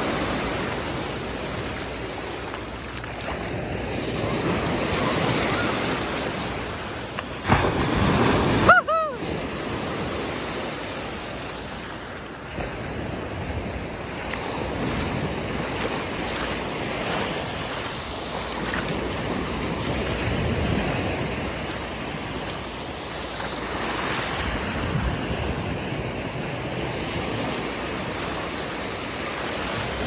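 Small Gulf of Mexico waves breaking and washing up over the sand in the shallows, the wash swelling and fading every few seconds, with some wind on the microphone. A couple of brief knocks about eight seconds in.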